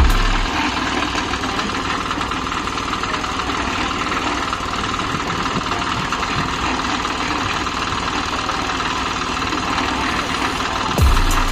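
An engine running steadily at an even speed, with a constant low hum under a broad mechanical noise, the kind of machinery that runs on site during a concrete pour.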